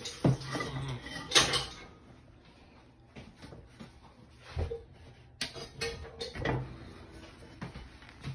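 Lid of an enamelled Dutch oven being handled and lifted, clunking against the pot's rim a few times, the loudest knock about a second and a half in.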